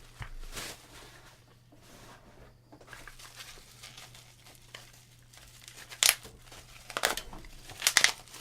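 Packaging being handled and torn open by hand: crinkling and tearing, with a few short, sharp rustles near the end.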